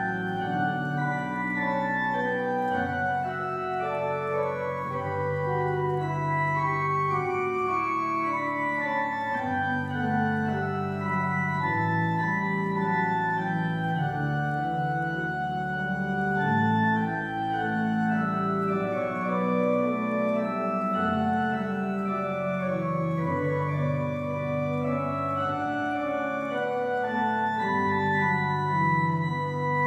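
Three-manual organ played with hands and pedals: sustained chords with moving upper lines over deep pedal bass notes that change every few seconds.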